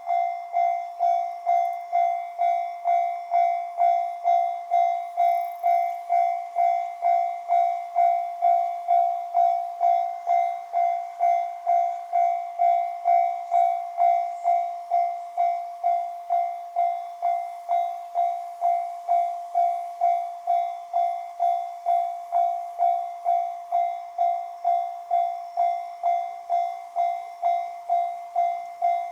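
Japanese railway level-crossing warning bell, electronic, striking a steady ringing tone about twice a second: the alarm that a train is approaching and the crossing is closing.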